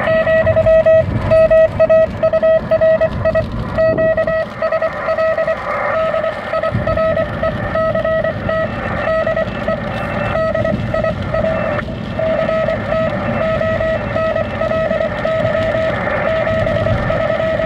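Morse code (CW) from an amateur radio transceiver: a single mid-pitched beep keyed on and off in dots and dashes. The car's low road noise runs underneath.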